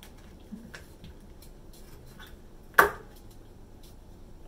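Kitchen knife cutting persimmon on a wooden cutting board: faint scattered taps and clicks, with one sharp, loud knock just under three seconds in.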